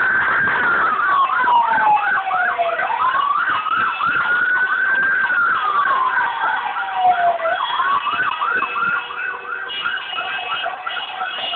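Two emergency-vehicle sirens sounding together. One is a slow wail, rising over about two and a half seconds and falling over about as long. The other is a fast yelp of several sweeps a second. A slow caravan of cars is passing underneath.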